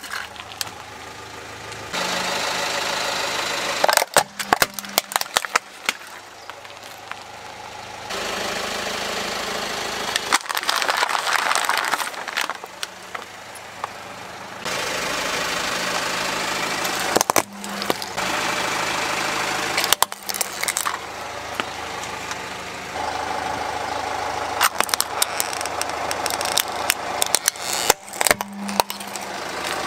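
Car tyre rolling over plastic toys and other objects and crushing them, with clusters of sharp cracks and snaps over the steady hum of the idling car engine. The sound jumps abruptly between several separate crushes.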